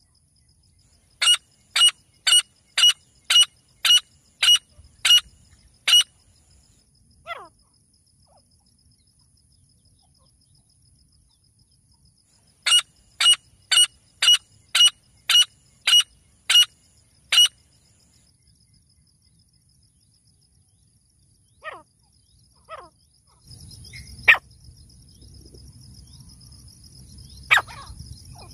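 Grey francolin (teetar) calling: two bouts of about nine loud, sharp, evenly repeated high notes at about two a second, with a few single notes between them. A low background noise comes up near the end, with two sharp clicks.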